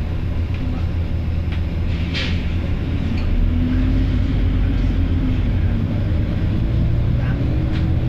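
Volvo B9TL bus's diesel engine idling with a steady low hum, and short hisses of compressed air from its air system about two seconds in and again near the end.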